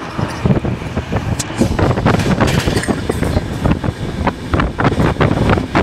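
Express train coach running at speed on the rails: a steady low rumble with a dense, irregular clatter of wheels and coach fittings.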